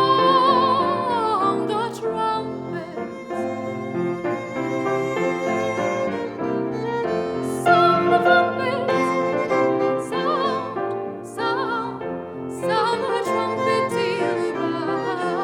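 Classical music: a high voice sings with wide vibrato over piano and bowed strings.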